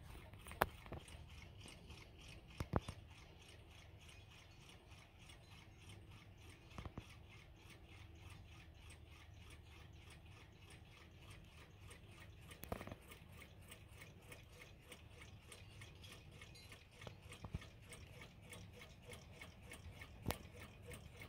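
Several vintage 1960s–70s mechanical wind-up alarm and table clocks ticking at once, their ticks overlapping into a quiet, rapid, even patter, with a few louder knocks scattered through.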